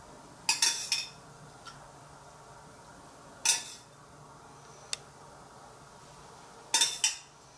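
Metal spoon clinking against a small stainless-steel saucepan as syrup is spooned out over a sponge cake, in three short bursts of clinks a few seconds apart.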